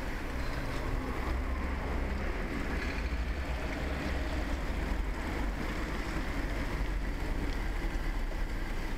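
Steady wind rumble on the microphone of a moving camera, mixed with the hiss of rolling along wet pavement.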